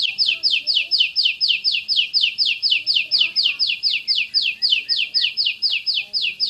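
Oriental magpie-robin (kacer) singing its rapid 'tembakan' (shooting) phrase: an unbroken string of sharp, falling notes repeated evenly at about five a second.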